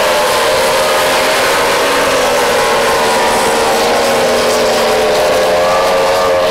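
Several Formula 3000 racing powerboats' outboard engines running flat out in a pack. Their whines overlap at slightly different pitches that drift gently down and back up, over the hiss of spray.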